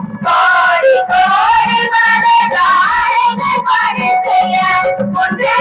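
A group of girls and women singing a devotional song together through microphones, with a hand drum beating steadily underneath, about two strokes a second.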